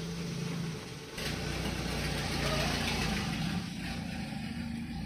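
A motor vehicle engine running nearby with a low hum. It swells abruptly about a second in, is loudest midway, then eases a little.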